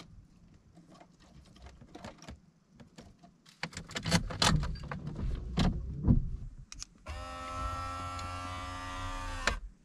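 A run of clicks and knocks from handling the unit, then a steady electric motor whine lasting about two and a half seconds that stops abruptly: the motorized face panel of a Toyota navigation head unit tilting open.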